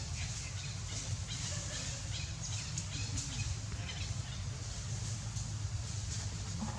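Outdoor ambience: faint, scattered high chirps over a steady low rumble.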